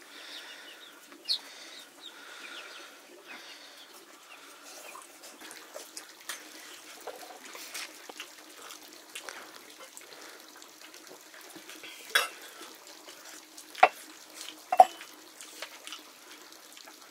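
Kitchen clatter: scattered light knocks and clicks, with three sharper knocks near the end.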